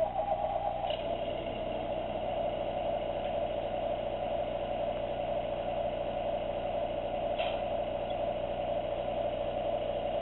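Lionel Missile Launch Set's electronic diesel engine sound, played through the train's small speaker, starting up and idling steadily once power is applied. There are two short hisses, about a second in and again about seven seconds in.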